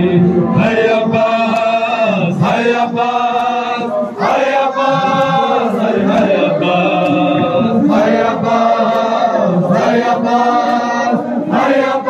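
A crowd of men chanting a Muharram mourning lament (noha) in unison, in long held phrases, with hand slaps on their chests (matam) keeping time.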